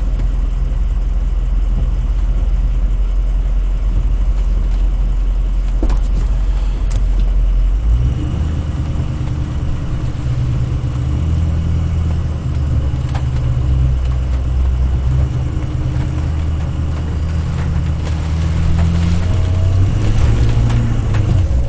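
Pickup truck engine running with a low rumble, then pulling harder about eight seconds in, its pitch stepping up and down as it works at a muddy uphill climb.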